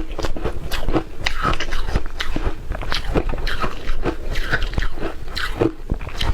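Shaved ice being bitten and chewed, a crisp crunch about twice a second in an irregular rhythm.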